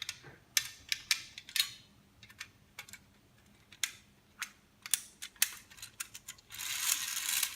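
Sharp metallic clicks and taps from a tin wind-up biplane toy and its winding key being handled, followed by a rasping, clattering burst about a second long near the end.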